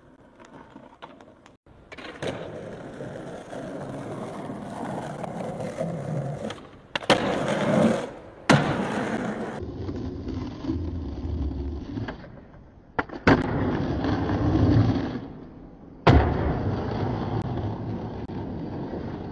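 Skateboard wheels rolling over pavement, broken by about four sharp clacks of the board striking the ground as tricks are popped and landed.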